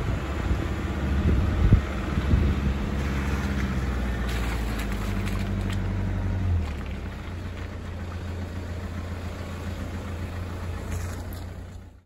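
Four-wheel-drive engine running at low revs, with a noisy rush over it and a few sharp knocks in the first two seconds. The engine note steps down a little about six and a half seconds in.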